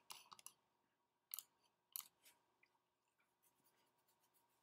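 About half a dozen faint, sharp clicks in the first two and a half seconds, against near silence.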